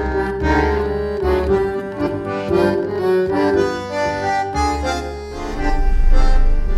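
Accordion music, a melody of held notes changing in pitch. Near the end a low, steady rumble of a car in traffic, heard from inside the car, comes in.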